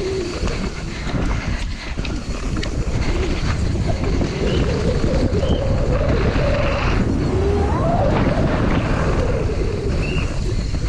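Wind buffeting the microphone over a loud, rough rumble of a downhill mountain bike running down a rough track, with faint wavering tones drifting in and out.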